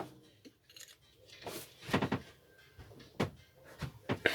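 A few scattered metal clinks and knocks from hand tools working at a stuck nut on a lawnmower engine.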